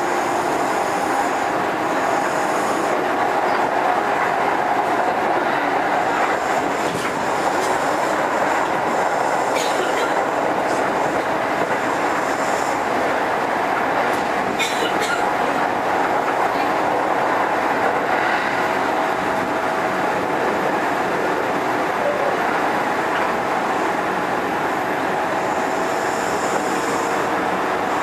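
Interior running sound of a Kintetsu 2430 series electric train at speed: steady wheel, motor and rolling noise with a steady hum, and a few sharp clacks of the wheels over rail joints.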